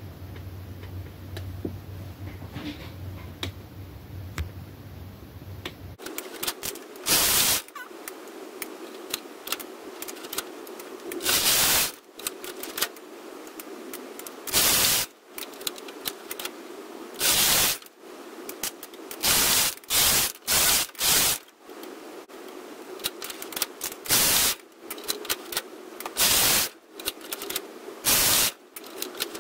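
Brother KH710 knitting machine's carriage pushed back and forth across the needle bed, knitting rows. Each pass gives a short, loud rasping clatter, about a dozen passes at uneven spacing, after a quieter first few seconds with a faint low hum.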